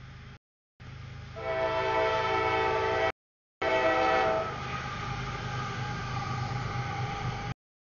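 Diesel freight locomotive sounding its multi-chime air horn in a long, loud blast as it reaches a grade crossing. The horn stops and the locomotive rumbles past, with steady engine and wheel noise. The audio drops out briefly three times.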